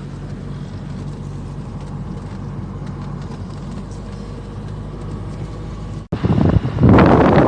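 Car running at a steady cruise, heard from inside the cabin as a low, even engine and road hum. About six seconds in, the sound cuts off abruptly, followed by a loud rush of wind on the microphone.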